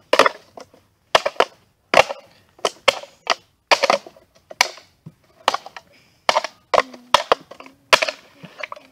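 A hammer striking empty tin cans on the ground, crushing them flat with repeated sharp, irregular blows, nearly two a second.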